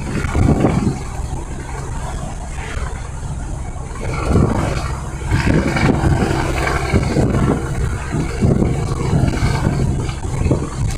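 International truck's diesel engine running with a low rumble that swells in irregular surges, snoring like a pig.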